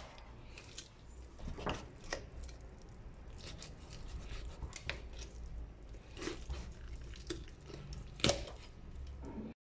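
Knife and hands working on a raw whole chicken being deboned, cutting the thigh free at the joint: faint wet squishes and scattered small knife clicks and taps, the sharpest about eight seconds in, over a low steady hum. The sound cuts off abruptly near the end.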